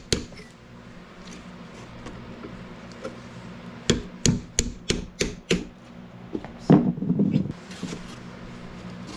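Hammer striking a punch against the metal shoulder of an old suspension toe link bushing to break the lip off. There is a sharp metallic strike at the start, then a quick run of about six strikes in under two seconds, and a louder knock with a short rattle near the end.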